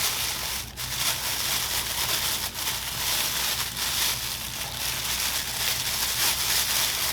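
Packaging crinkling and rustling as saw accessories are handled and packed back into their box, with a couple of sharp clicks.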